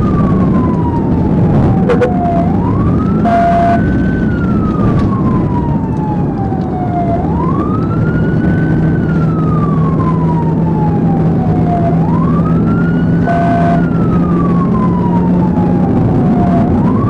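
Police siren in wail mode, rising quickly and falling slowly about every five seconds, heard from inside the pursuing patrol car over steady road and engine noise. Two short beeps sound, about three and thirteen seconds in.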